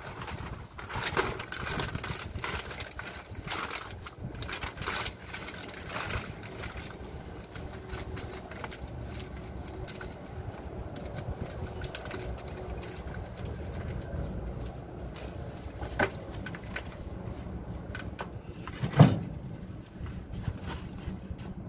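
Plastic bag of rice rustling and crinkling as it is handled, over a steady low rumble. Near the end comes a single loud knock.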